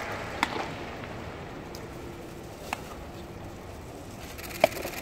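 Low murmur of a ballpark crowd with a couple of faint isolated clicks, then near the end a single sharp pop as the pitched baseball smacks into the catcher's mitt.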